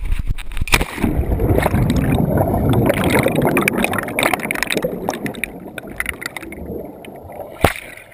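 Wind rushing over a falling GoPro camera, then a splash as it plunges into the lake, followed by churning, bubbling water heard underwater through the camera's waterproof housing, slowly fading. A single sharp knock comes near the end.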